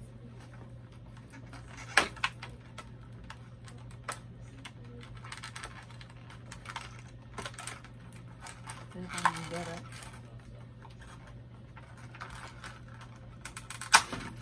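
Small plastic doll accessories and their plastic packaging being handled on a tabletop: scattered light clicks and rustling, with sharp clicks about two seconds in and again near the end.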